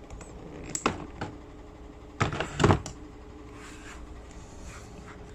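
A few short knocks and clatters of a plastic car door trim panel being handled and turned over, the loudest near the middle, over a faint steady hum.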